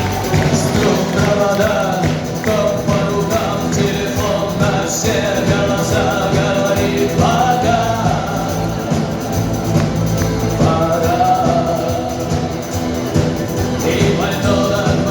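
Live rock band playing: guitars, bass and drums with a steady beat, with a melody line carried over them.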